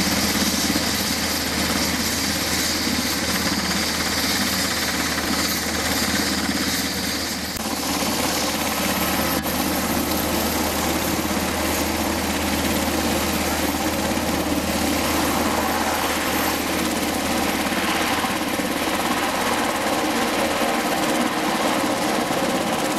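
Sikorsky UH-60M Black Hawk helicopters running on the ground as they taxi, their main rotors turning: a steady mechanical beat from the rotors over the sound of the twin turboshaft engines. A high-pitched part of the sound fades out about seven seconds in.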